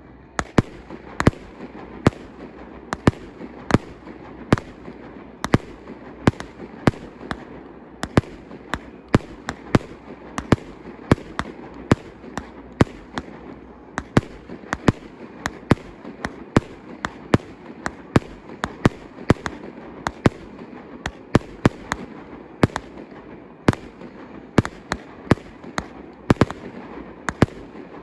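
Fireworks salute firing: a rapid, irregular run of sharp bangs, about two or three a second, over a steady background of noise.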